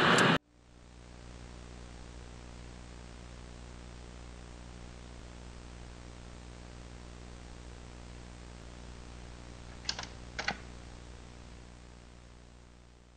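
A loud rushing noise cuts off abruptly at the start, then a steady low hum with two sharp clicks close together about ten seconds in; the hum fades near the end.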